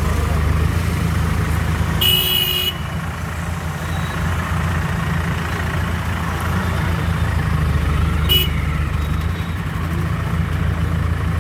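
Road traffic: a vehicle engine running steadily, with a horn honked for under a second about two seconds in and a short toot about eight seconds in.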